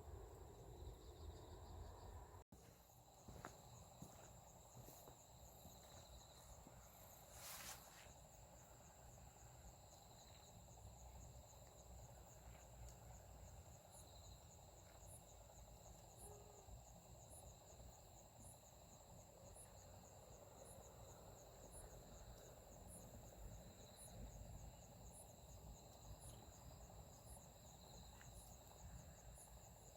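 Faint night insects: a steady high trill with regular cricket chirps about once a second, and a brief rustle about seven and a half seconds in.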